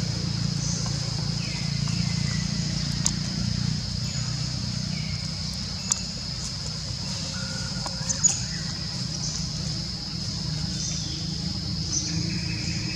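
Outdoor ambience: a steady low hum and a steady high thin whine. A few sharp clicks and short chirps break in now and then, the loudest clicks about six and eight seconds in.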